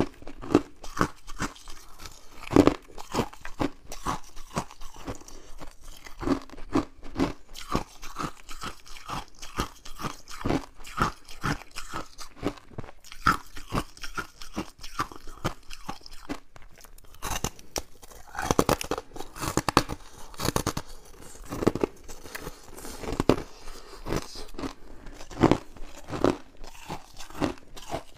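Freezer frost being bitten and chewed close to the microphone: a long run of quick, crisp crunches in irregular succession, packed more densely about two-thirds of the way through.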